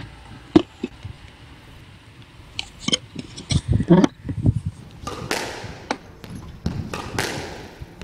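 A squash ball knocked about by a lone player on a glass-walled squash court: scattered sharp knocks and thuds that echo in the court, with two longer, noisier sounds about 5 and 7 seconds in.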